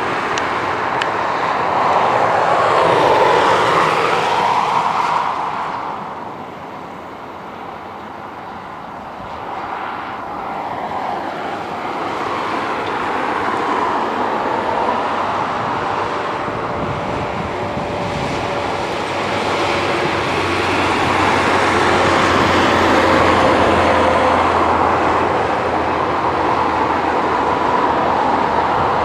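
Airbus A319 jet engines running as the airliner slows after landing and taxis, a steady rushing noise with a faint whine. It is loudest in the first few seconds, eases off about a quarter of the way in, then builds again.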